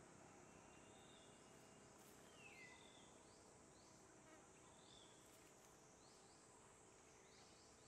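Faint outdoor insect hum, a steady high hiss, with short high chirps every second or so and one falling whistle about two and a half seconds in.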